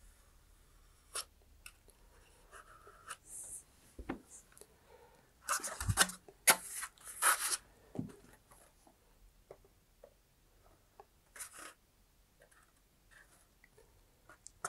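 Handling noises of a cardboard-and-balsa model rocket being worked by hand: light fingertip rubbing along the body tube and fin joints, then a louder run of scrapes with a low thump about six seconds in as the model is picked up and moved on the cutting mat.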